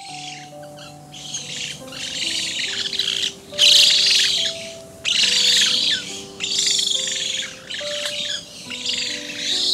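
Birds calling in repeated bursts of high chattering, each about a second long, over soft piano notes.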